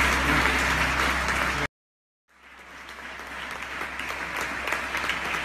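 Audience clapping and applauding at the end of a live band's song, with the band's last notes still held under it at first. About a second and a half in the sound cuts out completely for about half a second, then the applause comes back and gradually grows louder.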